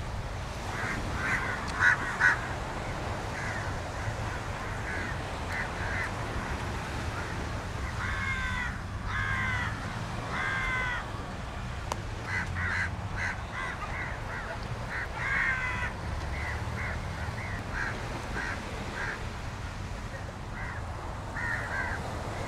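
Birds calling again and again: many short calls, with three longer, falling calls near the middle.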